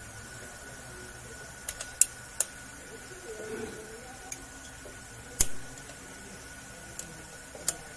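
Sharp metallic clicks and clacks of a drum-brake shoe, its return springs and hardware being fitted by hand onto the backing plate of a Kia K2700 drum brake, about six in all, the loudest about five and a half seconds in. A faint steady high tone runs underneath.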